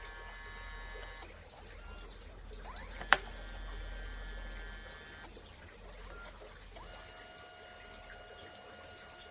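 Kodak Mini Shot 2 Era's built-in photo printer running, its small motors whining in steady tones that shift to new pitches several times as the sheet is worked through, with one sharp click about three seconds in.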